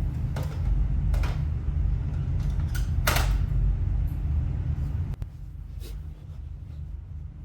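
Light clicks and scrapes of a wall-switch faceplate and its screws being fitted over a timer switch, the loudest about three seconds in, over a low rumble that drops away about five seconds in.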